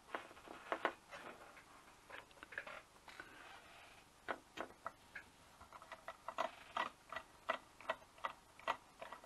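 Small sharp clicks and ticks of a T6 Torx precision screwdriver working the screws out of a hard drive's platter clamp. They are scattered at first and come more steadily, about two or three a second, in the second half.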